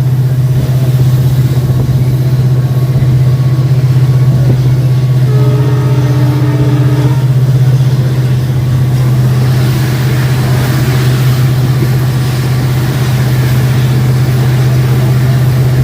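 WDP4D diesel-electric locomotive's EMD 16-cylinder two-stroke diesel engine humming steadily under load, heard from a coach behind it. A higher tone joins for a couple of seconds about five seconds in, and a hiss grows louder in the second half.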